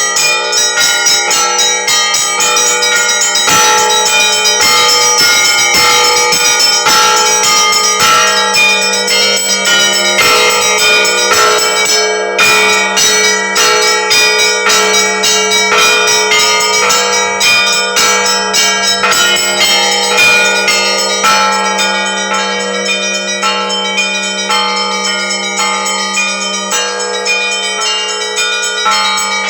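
Russian Orthodox church bells ringing together, many bells struck in quick succession over a steady low hum.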